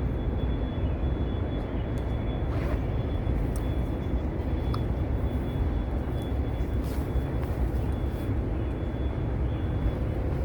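Steady low rumble of outdoor background noise, with a faint steady high-pitched tone and a few light clicks or rustles.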